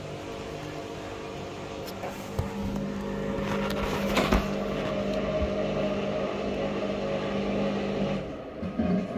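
Samsung EcoBubble front-loading washing machine spinning its empty drum: a steady motor whine over a low hum, with a brief knock about four seconds in. About a second before the end the sound drops and changes as the spin speed shifts.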